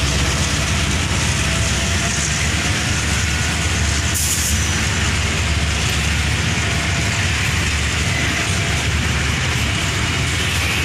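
Long train of open-top coal wagons rolling past on the rails: a steady low rumble of wheels on track, with a brief high hiss about four seconds in.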